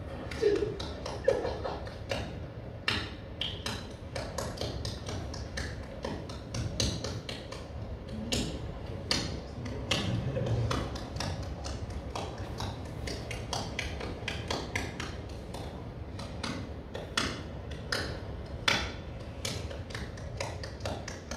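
A rapid, irregular series of sharp clicks and taps, about three or four a second, the loudest two near the start, from the soundtrack of a film installation playing in a gallery room.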